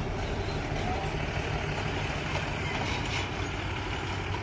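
Diesel engine of a loaded goods truck idling with a steady low hum.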